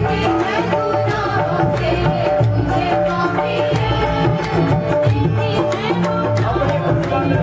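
Live devotional song: several voices singing into microphones over hand drums, a dholak, beating a steady rhythm of about four strokes a second, with held keyboard notes underneath.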